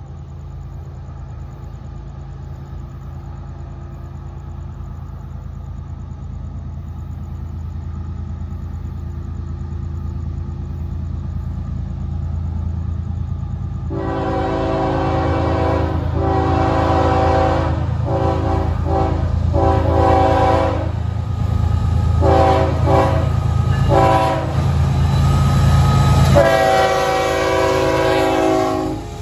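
Florida East Coast Railway freight train approaching, led by GE ES44C4 diesel locomotives: a low engine rumble grows steadily louder. About halfway through, the locomotive's multi-chime air horn sounds a series of long and short blasts for the grade crossing. The horn stops just before the end as the locomotive draws level.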